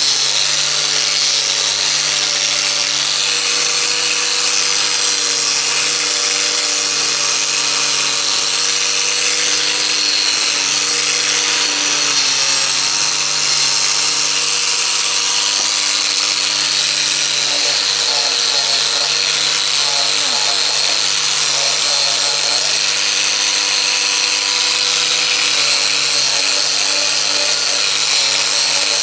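A power tool running steadily: a loud, even hiss over a steady motor hum that sags briefly about twelve seconds in.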